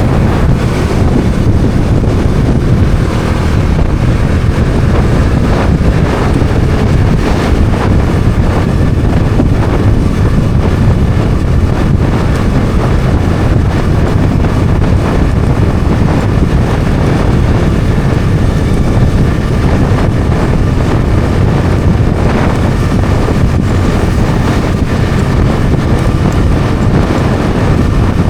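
Bajaj Dominar 400's single-cylinder engine running steadily while riding, under heavy wind rumble on the microphone.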